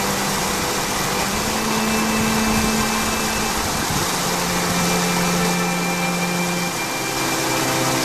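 Steady rush of creek water, with a low hum under it that changes pitch about a second in and again about four seconds in.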